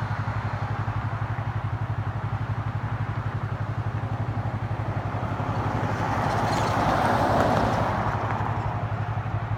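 An engine idling with a steady, fast low throb. About six seconds in, a car passes on the road, its sound swelling and fading away by about eight and a half seconds.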